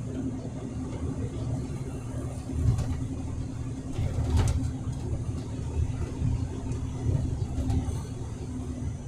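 Steady low drone of a truck's engine and road noise heard inside the cab, with a constant hum running through it and a short click about four seconds in.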